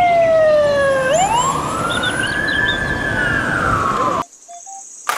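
Fire engine siren wailing over road noise: its pitch falls, sweeps back up about a second in, then slowly sinks again. The sound cuts off suddenly about four seconds in, followed by quieter background and a brief click near the end.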